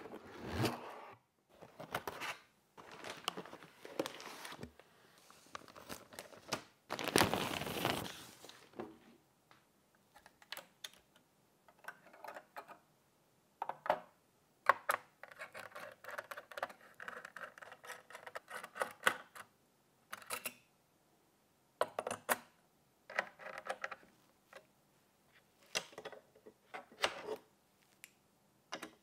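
Hands handling computer parts and their packaging: scattered clicks, taps and rustles, with short silent gaps between them.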